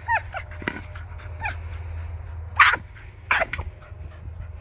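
Australian cattle dog whining and yipping while playing with a ball: a few short falling whines in the first second and a half, then two sharp, louder yips a little past the middle.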